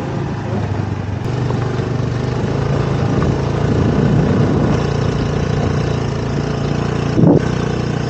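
Small motorbike engine running steadily as it carries two riders along a dirt track, with wind rumble on the microphone. The engine note grows louder over the first few seconds, and a short loud knock comes about seven seconds in.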